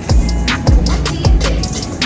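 Background music with a steady deep bass beat, one thump about every 0.6 seconds, and sharp ticking hi-hats over it.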